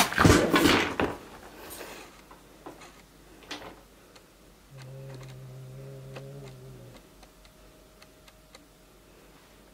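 Loud rubbing and rustling of the camera being handled against cloth for about the first second, then a quiet room with scattered small clicks. A steady low hum sounds from about five to seven seconds in.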